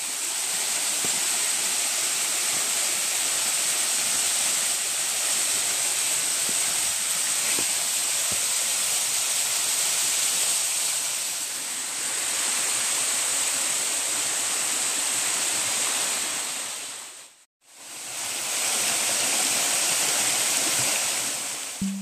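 Small waterfall rushing steadily as its water cascades over rocks. The sound drops out for a moment about three-quarters of the way through, then returns.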